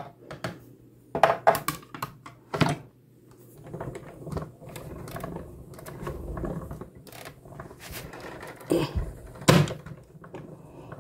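Hand-cranked die-cutting machine forcing a die and plate sandwich through its rollers, with a series of knocks and clunks and a low rumbling stretch in the middle. A woman grunts with the effort of turning the crank.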